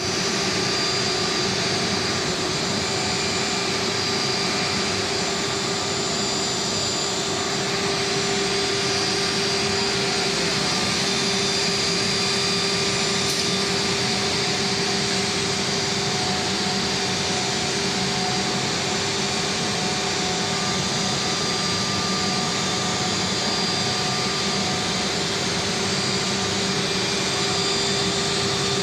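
Woodworking ATC CNC router running with its dust extraction: a steady, even machine noise with a held hum-like tone, unchanging throughout.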